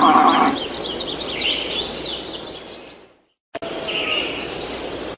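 Outdoor farmyard ambience: an animal's call at the start, then birds chirping rapidly for a few seconds. The sound fades and drops out briefly about three seconds in, then the ambience starts again.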